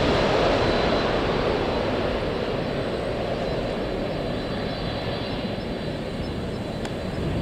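Airliner engine noise: a broad rushing roar with a faint high whine, slowly fading as the aircraft moves away.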